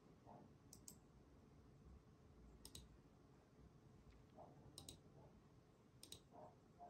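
Faint computer mouse clicks, each a quick double click of press and release, four times in all, over a quiet room hum.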